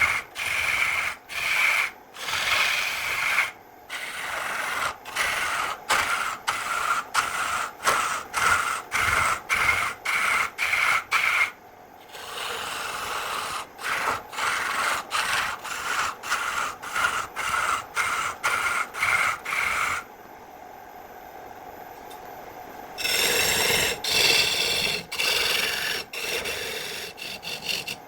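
A hand tool scraping or rubbing across wood in rhythmic back-and-forth strokes, about two a second, with a brief pause around a third of the way in. The strokes stop for a few seconds, then a louder, denser spell of scraping follows near the end.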